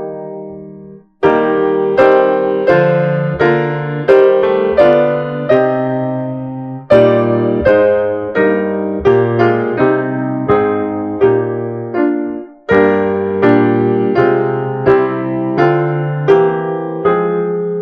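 Solo piano playing a slow piece in struck chords, each chord fading after it is played, with short pauses between phrases about a second in and again near thirteen seconds.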